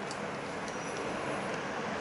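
Steady hum of city street traffic, an even rushing noise with a few faint clicks.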